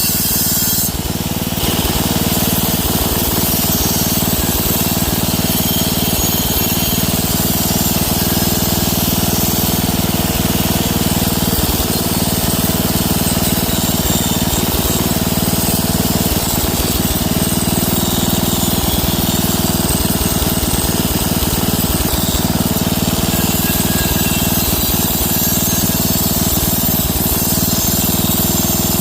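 Angle grinder running steadily under load, grinding the surface of a wheel rim smooth, with a brief lull about a second in.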